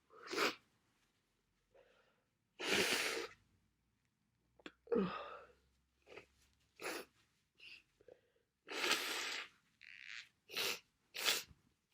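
A person with a bad head cold sniffling and breathing hard through a congested nose: a string of short sniffs and two longer breaths, with quiet gaps between.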